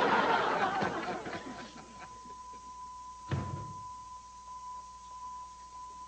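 Studio audience laughter dying away over the first second or so. A faint steady high tone then runs on, and a single thud comes a little after three seconds.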